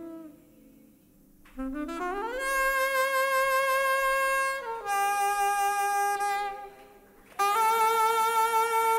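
Solo saxophone playing slow, held notes with vibrato and no accompaniment. After a brief pause it scoops up into a long note, steps down to a lower note that fades out, then comes back near the end with a loud held note.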